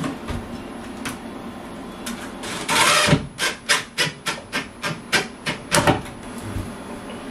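A power drill driving a screw into the wall to mount a bracket: one longer run about two and a half seconds in, then a quick series of short pulses, about four a second, that stop about six seconds in.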